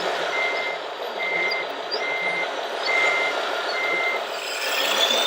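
Reversing alarm of a radio-controlled model truck or construction machine: five steady beeps at one pitch, about one a second, stopping about four seconds in, over the running sound of the models' motors and gears. Near the end a whine rises in pitch.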